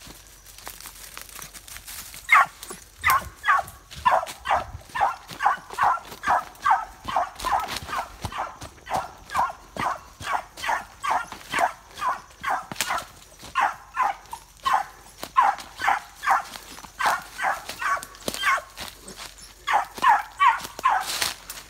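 One-year-old beagle pup giving tongue on a solo run: short, falling barks repeated about twice a second, starting about two seconds in, the voice of a hound running a scent line.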